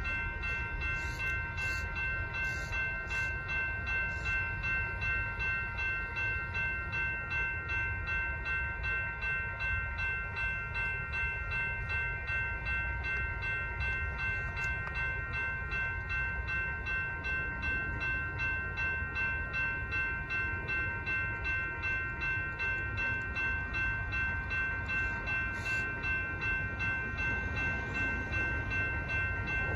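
Railroad grade-crossing warning bells ringing continuously in rapid, even strikes, over a low steady rumble.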